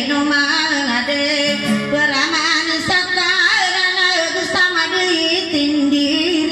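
A woman singing in long, wavering notes while accompanying herself on an acoustic guitar.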